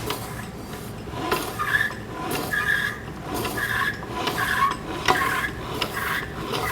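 4L60E automatic transmission's output shaft and geartrain being turned back and forth by hand. It makes a series of short metallic scraping and rubbing sounds with a few sharp clicks. This is a check that the freshly assembled shaft turns freely both ways.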